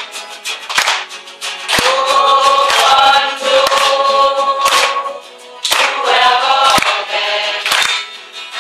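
A group of mostly women's voices singing a song together, with a few short pauses between lines and hand claps now and then.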